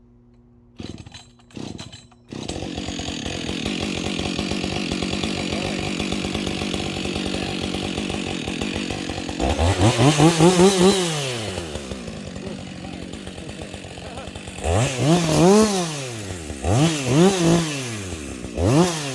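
Two-stroke chainsaw being pull-started: two short pulls, then it catches about two seconds in and runs steadily. From about ten seconds in it is revved up and down four times, cutting the face notch in a fir.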